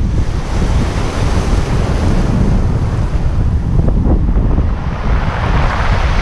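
Small waves breaking and washing up a pebble beach, with wind buffeting the microphone throughout. The wash swells louder near the end.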